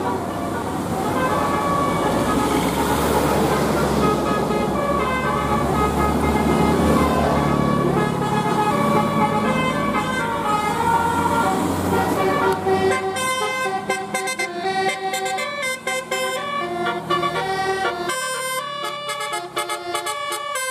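A bus's multi-tone 'basuri' telolet horn playing a quick melody of stepped notes over the rumble of the bus's engine as it passes. About twelve seconds in, the engine rumble fades while the horn tune carries on.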